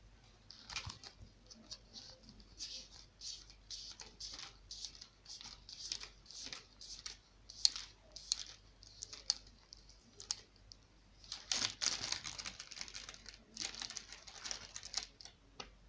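Many quick, irregular clicks and rustles of small parts being handled, thicker in a stretch about two-thirds of the way through.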